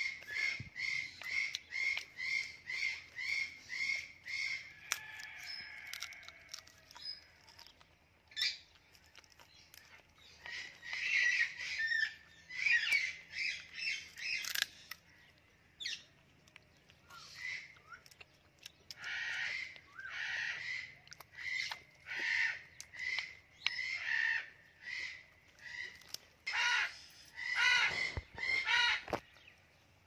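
Indian ringneck parrot calling in runs of short, harsh, evenly repeated notes, about two to three a second, broken by pauses of a few seconds. A few sharp clicks fall in the gaps.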